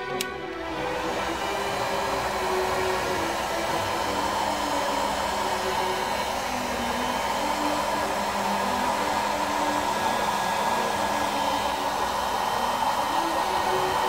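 Handheld hair dryer switched on with a click, then blowing steadily onto a bare DDR4 memory module to dry out the oil that seeped between the memory chips and the circuit board.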